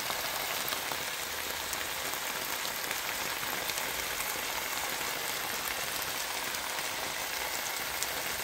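Chicken breasts, onions and bell pepper strips sizzling steadily in a hot nonstick frying pan, a constant fine crackling hiss.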